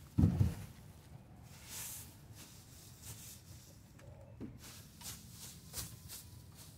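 Rake tines scraping and dragging through straw bedding on a coop floor in short, separate strokes about once a second. A loud low thump comes just after the start.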